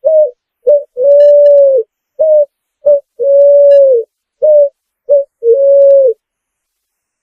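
Picazuro pigeon cooing: a repeated phrase of two short coos and one longer held coo, given three times, then it stops about a second before the end.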